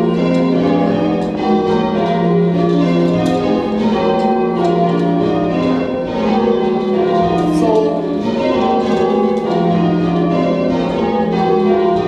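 Church tower bells being change rung, pulled by hand from the ringing chamber below: a steady, unbroken run of bell strikes, each ringing into the next.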